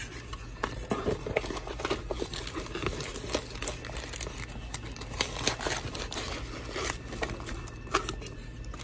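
Hands rummaging through a cardboard box full of foam packing peanuts: irregular rustling and crinkling with many light clicks and taps, and a card pack's wrapper crinkling as it is pulled out near the end.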